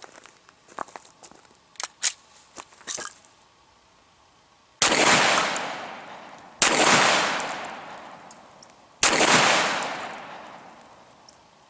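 Three 9mm Glock 17 gunshots fired one at a time in slow, aimed succession, about two seconds apart, each with a long echo fading away behind it. A few light clicks and knocks of handling come before the first shot.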